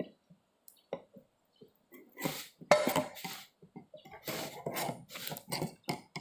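Flat-head screwdriver prying open the lid of a metal paint can: a few sharp clicks, then from about two seconds in a quick run of scraping and clicking as it is worked around the rim.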